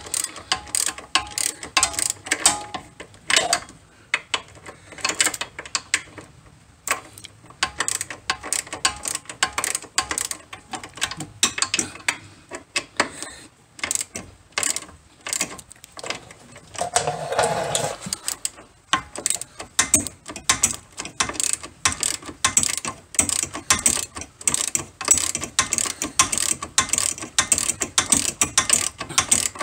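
Hand socket ratchet clicking in rapid runs with short pauses, as a long extension turns the nut on the lower shock-absorber mount of a C4 Corvette's front suspension to take the shock loose.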